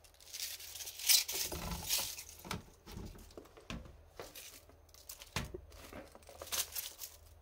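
Hands gathering and handling cut raw cabbage leaves on a cutting board: irregular rustling and crackling of the crisp leaves, loudest about a second in.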